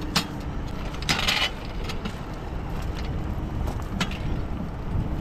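Rail bike, a mountain bike fitted with a guide arm and outrigger wheel, rolling along a rusty steel rail: a steady low rumble with sharp clicks, and a louder scraping rattle about a second in.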